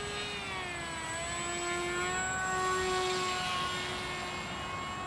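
Electric RC flying wing passing overhead: its 2204 2200kv brushless motor and 6x3 propeller give a steady high whine. The pitch dips about a second in, then holds.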